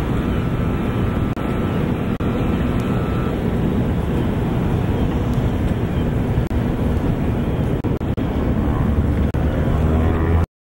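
Floatplane engines running on the water, heard as a steady rumble with a faint high steady tone during the first three seconds. The sound cuts off suddenly at the very end.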